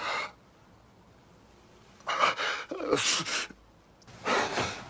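A person sneezing: gasping in-breaths and sneezes, heard as three short bursts from about two seconds in.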